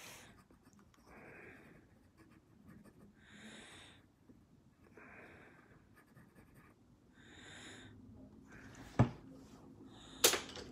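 Pencil sketching on paper: soft scratchy strokes in short runs every second or two. About nine seconds in comes a sharp knock, and another follows a second later.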